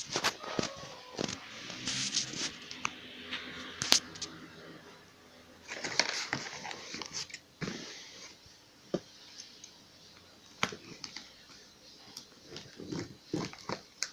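Irregular handling noises from packaging: rustling bursts and sharp clicks and knocks, with short quiet gaps between them.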